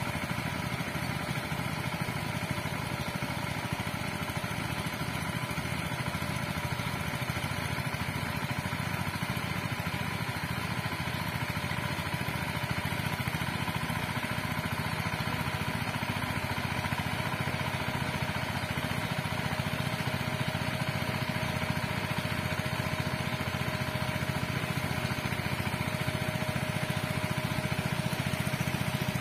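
Small engine of a walk-behind power weeder running steadily as it tills a furrow in the soil, growing slightly louder near the end.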